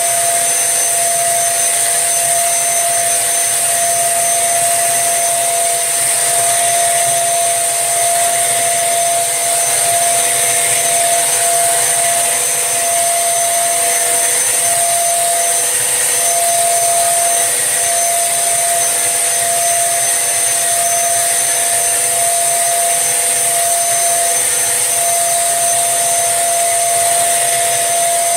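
Tesco own-brand 1800-watt bagless upright vacuum cleaner running steadily while picking up Vanish powder: a constant motor whine over a high hiss, the whine wavering briefly now and then.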